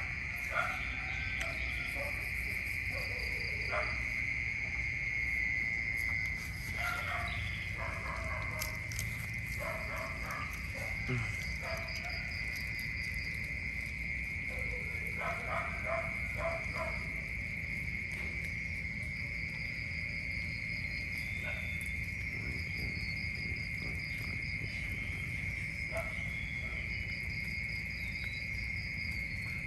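A steady high-pitched insect drone, with otters making short bursts of sound over it at several moments while they feed. Faint small chirps sound higher up now and then.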